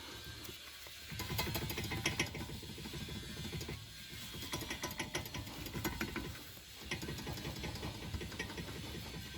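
Rapid mechanical clicking in three runs of about two seconds each, with short pauses between them.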